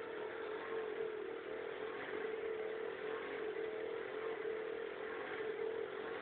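Kymco scooter engine idling steadily at the exhaust silencer, a constant hum with a slight waver in pitch.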